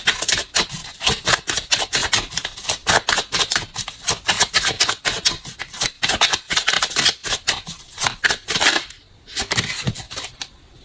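A deck of tarot cards being shuffled by hand, a rapid patter of card-on-card flicks that stops about nine seconds in, with a few fainter ones after.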